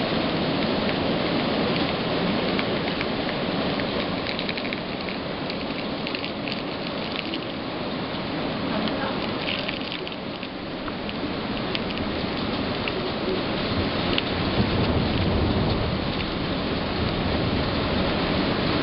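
Heavy rain falling steadily, with water pouring off a roof edge and close drops ticking. A low rumble of thunder swells about three-quarters of the way through.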